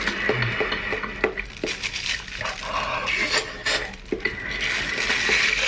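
Disposable plastic gloves crinkling and rustling as the hands move, with scattered light taps and clicks from handling a paper food box.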